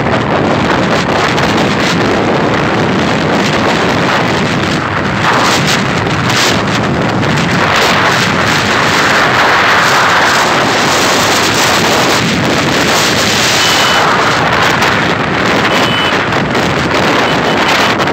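Loud, steady wind buffeting on the microphone of a camera on a moving road vehicle, with the vehicle's running and road noise underneath.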